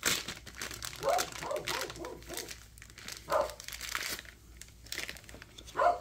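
Plastic packaging crinkling and crackling as a replacement belt pulley for a lawn tractor is unwrapped by hand, with a few brief voice-like sounds in between.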